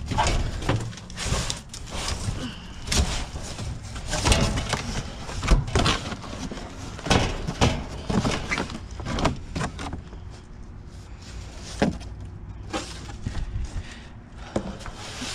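Flattened cardboard boxes being shifted and shuffled inside a metal dumpster: repeated scraping, flapping and knocks, busiest over the first two-thirds, then sparser, with one sharper knock about twelve seconds in.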